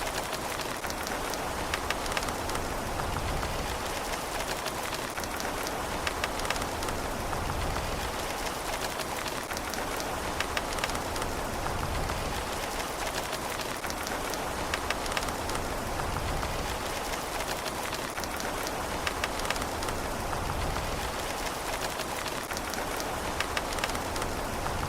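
Steady rain falling on a surface, a continuous hiss scattered with the sharp ticks of individual drops.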